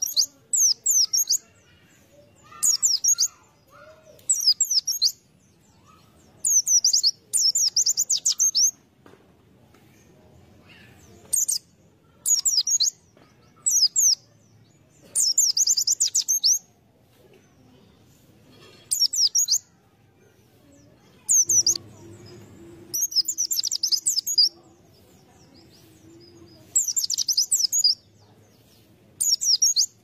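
White-eye (pleci) song: about fifteen short bursts of rapid, very high twittering notes, each under a second or two long, separated by brief pauses.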